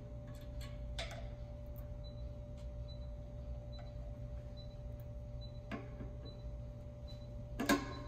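A few sharp clicks and knocks of a screwdriver and wire terminals against a pressure switch as its wires are unscrewed, the loudest near the end, over a steady low hum.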